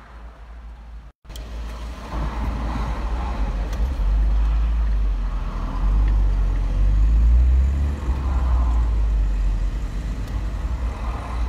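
Car moving slowly in motorway traffic, heard from inside the car: a loud, uneven low rumble of engine and road noise. It starts after a brief gap about a second in.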